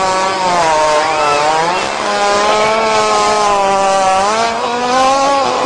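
One long, unbroken fart held at a buzzing pitch that wavers gently up and down.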